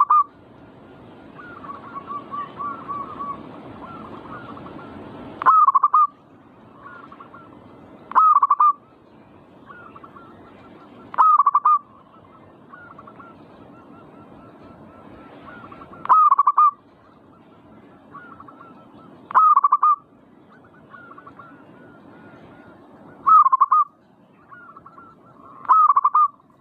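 Zebra dove cooing: a loud, short call about every three to five seconds, with softer quick stuttering notes in between.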